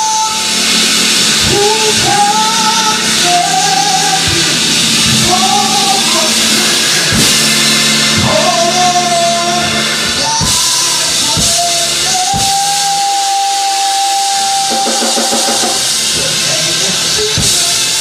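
Live gospel worship music: one singer singing sliding, ornamented lines over a band with drums and sustained low chords, holding one long note a little past the middle.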